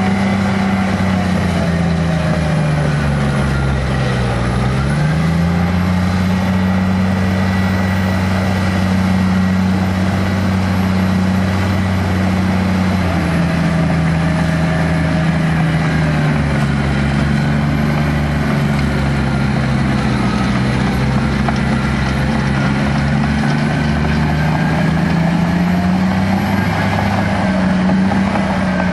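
Komatsu D65PX bulldozer's diesel engine running. Its pitch dips sharply and recovers about four seconds in, then rises and falls slowly, with a faint high whine throughout.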